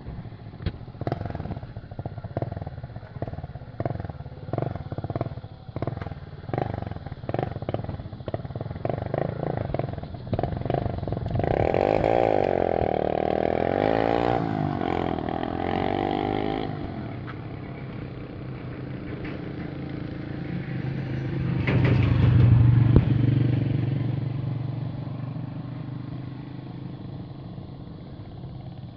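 Motorcycle engine running while riding, with a fast, irregular rattling for the first ten seconds or so. A stronger pitched engine note comes in from about twelve to seventeen seconds in, and the engine grows loudest about twenty-two seconds in before easing off.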